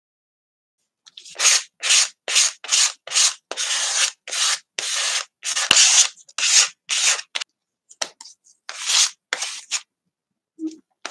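Rubbing strokes across paper, about two a second, some short and some drawn out, starting about a second in and stopping near the end, with one sharp tap about halfway.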